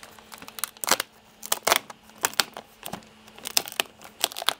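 Adhesive shipping tape being peeled off the glass front door of a Bambu Lab P1S 3D printer: irregular clusters of sharp crackles and ticks.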